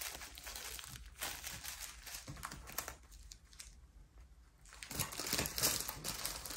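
Small plastic bags of diamond-painting drills crinkling as they are handled and sorted. The crinkling eases for a second or so in the middle, then picks up again near the end.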